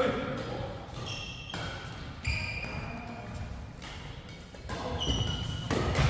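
Badminton doubles rally: sharp racket hits on the shuttlecock and knocks of feet on the wooden court, with short high squeaks from court shoes sliding on the floor.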